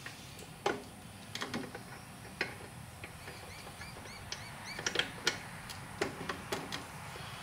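Scattered sharp clicks and knocks of hands working the ride-on mower's front wheel and tie rod steering linkage. About four seconds in, a small bird chirps a quick run of short rising-and-falling notes in the background.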